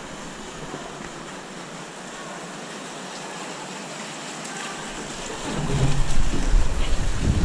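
Steady rush of water flowing down an open plastic water slide, which about five and a half seconds in turns louder and rougher, with a low rumble, as a rider sets off and slides down through the water.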